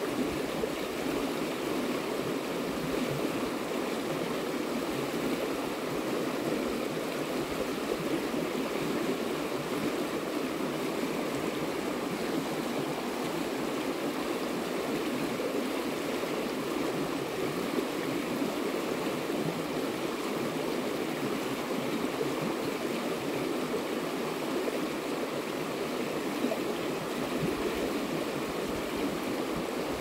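A river flowing: a steady, unbroken rush of water.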